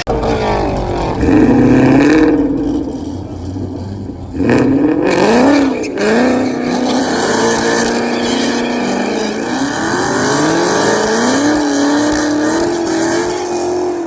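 Supercharged Ford Coyote 5.0 V8 in a 2014 Mustang accelerating under load, its pitch climbing and dropping back several times as it shifts up through the gears, then holding fairly steady near the end.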